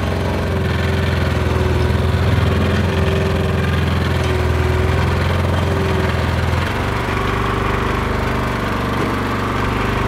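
Fishing boat's motor running steadily. Its deep hum eases off about seven seconds in, and the motor keeps running at a lower level.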